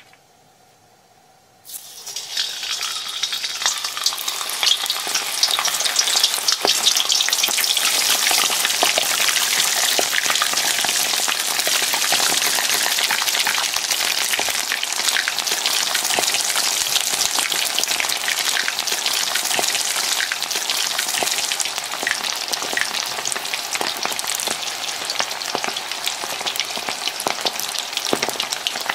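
Potato-starch-coated chicken wings deep-frying in 180 °C oil. The oil is quiet at first, then bursts into loud, dense sizzling and crackling about two seconds in as the wings go in, and keeps up steadily.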